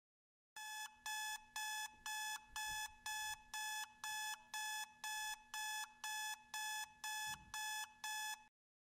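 Electronic alarm beeping steadily, about two beeps a second, then cutting off suddenly near the end as it is switched off.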